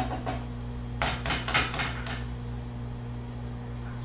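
An egg being cracked against a frying pan: a quick run of sharp taps lasting about a second, starting about a second in.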